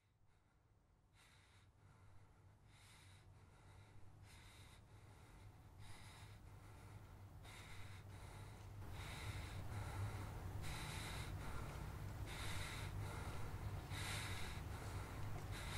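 A man panting, with quick heavy breaths about once a second, over a low steady hum. The whole sound fades in from silence and grows louder throughout.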